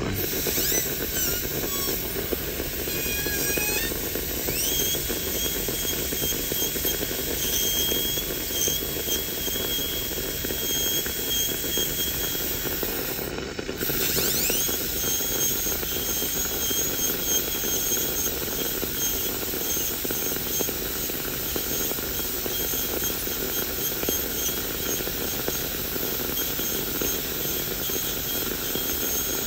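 High-speed dental handpiece with a diamond bur cutting a plastic typodont tooth during a crown preparation. It gives a steady high whine over a hiss. The whine rises as the handpiece spins up a few times in the first seconds. It stops briefly a little before the middle and then spins back up with a rising whine.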